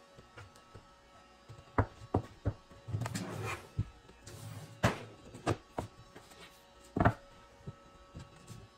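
Wooden drawer box knocked and set down on a workbench as it is tipped over and back: a series of sharp wooden knocks and thunks, with a scraping slide about three seconds in.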